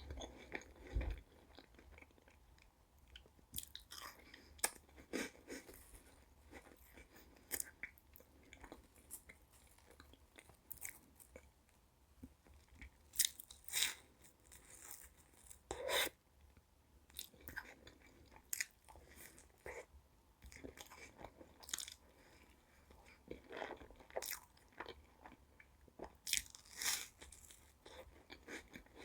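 Eating sounds of Pavlova meringue cake: irregular crisp crunches of bites, with chewing in between.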